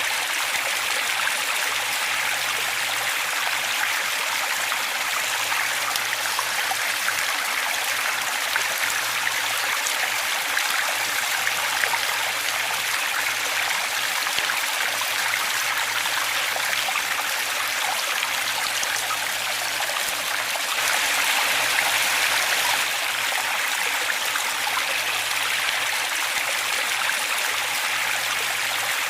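Waterfall: a steady rush of falling water, briefly a little louder about two-thirds of the way through.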